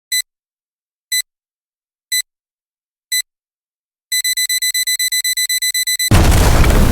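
Electronic countdown alarm: four short, high beeps one second apart, then a fast run of about eight beeps a second for two seconds. About six seconds in, a loud explosion sound effect cuts in suddenly and keeps rumbling.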